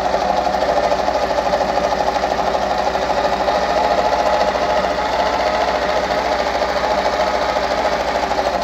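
Pfaff 230 sewing machine running steadily, stitching a straight stitch through fabric with a fast, even clatter.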